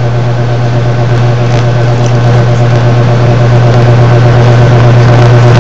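A loud, steady low hum with no words over it, and a faint thin higher tone alongside.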